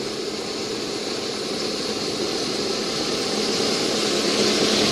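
Fire-brigade pickup truck driving through a flooded street: its engine running under a rushing swish of water thrown up by the tyres, growing steadily louder as it approaches and passes close by.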